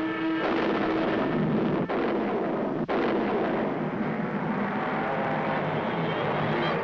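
Cartoon sound effect of a rocket-powered car streaking past: a loud, dense, steady roar, broken only by two very brief dips about two and three seconds in.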